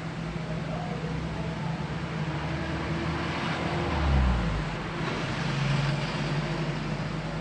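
Road traffic: a steady engine hum, with a vehicle passing close about four seconds in, its engine note dropping as it goes by. Another engine swells up briefly near six seconds.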